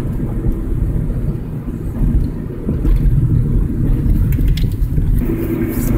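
Steady low road and engine rumble inside the cabin of a moving car.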